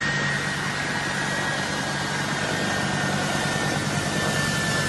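Turbofan engines of a US Air Force C-17 Globemaster III transport jet running as it taxis, a steady high whine over a low rumble.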